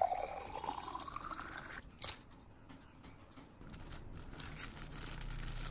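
Water pouring into a glass jar, its pitch rising steadily as the jar fills, cut off with a click about two seconds in. After that come faint rustles of a plastic-wrapped canvas being handled.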